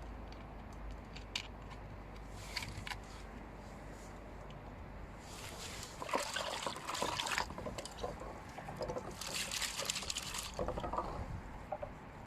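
Water splashing and trickling as fresh garlic sprouts are washed by hand, with a few light clicks and two louder bouts of swishing, about six and nine and a half seconds in.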